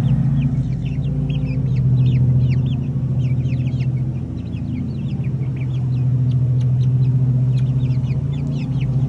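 Young Easter Egger and Buff Orpington chickens peeping: many short, falling chirps overlapping throughout. Beneath them runs a steady low mechanical hum, the loudest sound.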